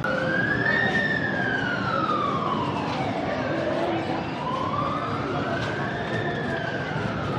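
Emergency vehicle siren wailing in a slow rise and fall, one full sweep about every five seconds, over steady crowd chatter.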